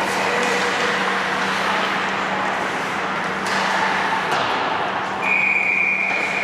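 Ice hockey game noise: skates scraping on the ice with a couple of stick or puck knocks, and a referee's whistle blown once for about a second and a half near the end.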